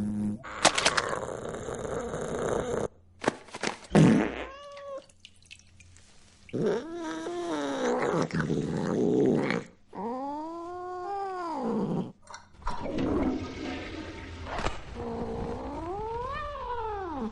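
Domestic cat meowing four times in long, drawn-out calls that rise and fall in pitch, the third the longest. A few sharp clicks and knocks come in the first few seconds.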